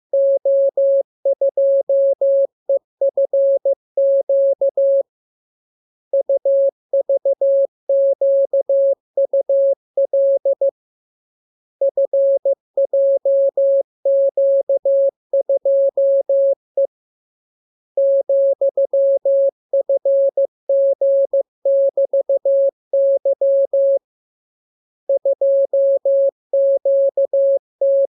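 Morse code (CW) practice signal: a single steady beep keyed on and off in dots and dashes, sent as runs of characters with pauses of about a second between them.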